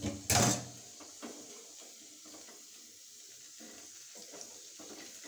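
A short loud burst about half a second in, then faint scattered clinks and scrapes of a metal slotted spoon turning coated yam pieces in a small kadai.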